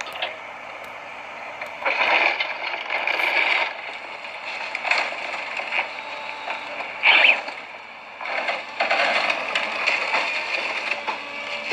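Caterpillar excavator's diesel engine and hydraulics running with a steady hum, under repeated rough bursts of crunching, scraping metal as its grapple crushes an overturned junk vehicle. The sharpest crunch comes about seven seconds in.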